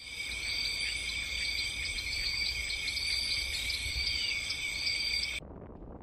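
Night-time chorus of crickets and insects, a steady high shrill trill with small chirps over a low rumble, starting abruptly and cutting off sharply about five seconds in.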